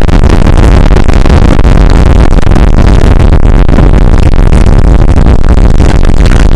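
Extremely loud, heavily distorted wall of noise, steady and without any clear pitch or rhythm.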